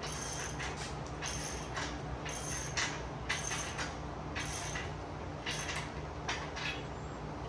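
Hand ratchet wrench worked in short, irregular strokes about once a second, each stroke a brief metallic rasp, over a steady low hum.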